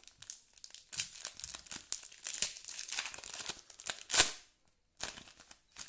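Foil wrapper of a hockey card pack crinkling and tearing open as it is handled, in a run of crackles with the loudest rip just after four seconds in.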